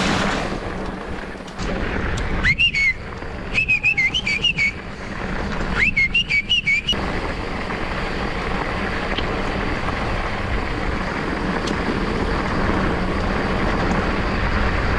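Mountain bike rolling over a gravel track: a steady rushing noise of tyres on gravel and wind on the microphone. Between about two and seven seconds in, three short groups of high chirping, whistle-like notes come and go, with light clicks.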